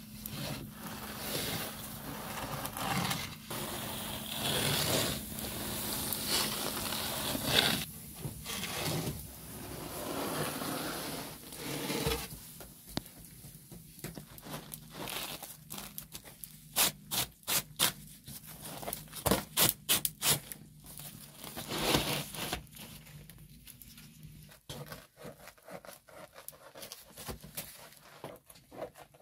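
A wooden peel scraping and rubbing along the stone floor of a wood-fired oven as a baked pizza is pulled out. Then come quieter scrapes and handling noises on a wooden board, with a quick run of sharp clicks past the middle.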